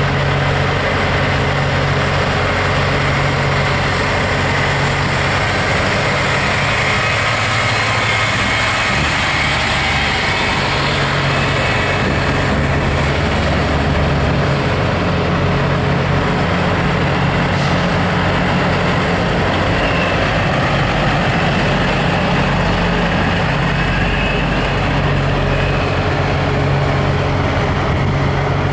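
Diesel engines of semi tractor-trailers running as the big rigs pull slowly past in a line, a steady low engine drone with the pitch shifting as trucks come and go.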